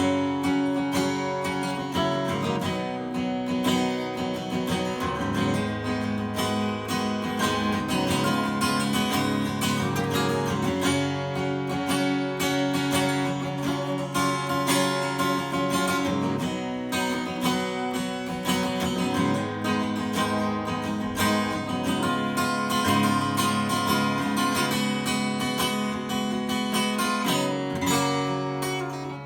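A 1977 Martin D35 dreadnought acoustic guitar, freshly strung, being played: it rings with strummed and picked chords that change every few seconds.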